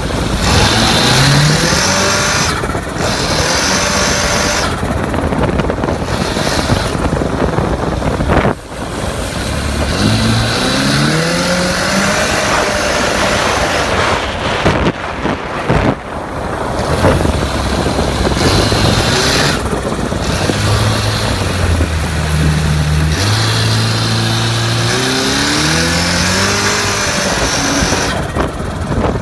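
Turbocharged engine of a Honda AquaTrax R-12X jet ski running and being revved, its pitch climbing several times and dropping back.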